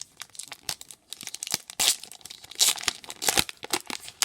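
Pokémon trading-card booster pack being torn open, its wrapper crinkling, with a run of sharp crackles and several louder rips.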